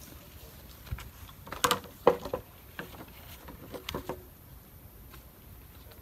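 Thick green bamboo poles being laid down on leaf-strewn ground: two loud knocks with a short ringing about two seconds in, followed by several lighter knocks up to about four seconds in as the poles settle against each other.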